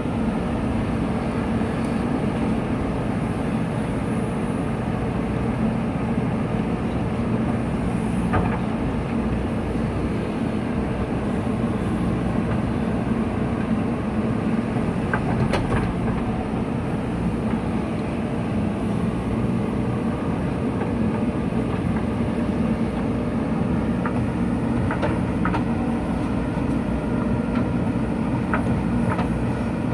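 JCB 3DX backhoe loader's diesel engine running steadily under working load, with a few sharp metallic clanks of the digging gear now and then.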